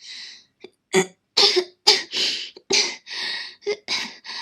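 A young woman coughing hard in a rapid run of about ten harsh, hacking coughs with short breaths between them: a coughing fit.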